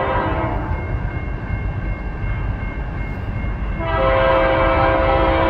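Diesel locomotive air horn sounding for a grade crossing as a train approaches: one blast fades out about half a second in, and a louder, long blast starts about four seconds in and holds, over a low rumble.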